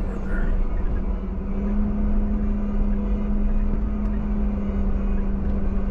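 A motor vehicle running steadily, with a constant low hum and rumble.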